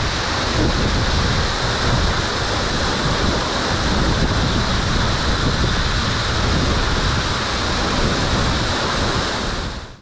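Steady rush of a waterfall pouring from a hole in a rock face. It fades out near the end.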